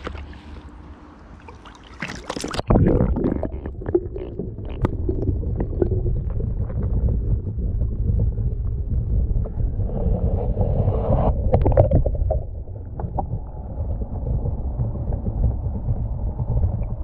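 An action camera going into river water with a splash about two seconds in, then the muffled low rumble and small knocks of water heard through the submerged camera.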